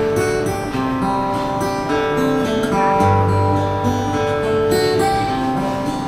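Background music: an acoustic guitar strumming chords in an instrumental passage of a soft love-song cover, without singing.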